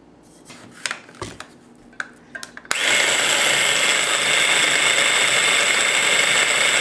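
A few light knocks and clicks. Then, about two and a half seconds in, a small electric food chopper switches on and runs steadily with a high whine, its blades mincing chopped onion into a paste.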